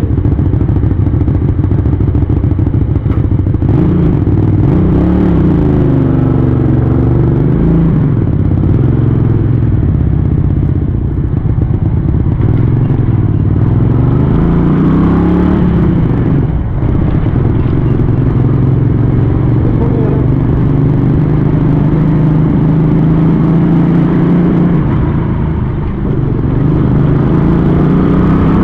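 Mirage 250 motorcycle's 250 cc V-twin engine running on the road, its pitch rising and falling several times with the throttle, with a brief dip about sixteen seconds in.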